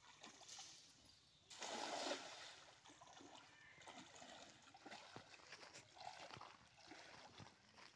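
A cast net slapping down on pond water with a sudden splash about a second and a half in, followed by lighter sloshing as a person wades into the water.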